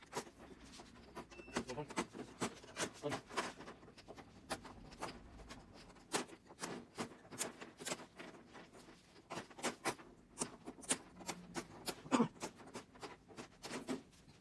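Many quick, irregular clicks and snaps as the frame around an LCD TV panel is worked loose by hand along its edge, the loudest snap near the end.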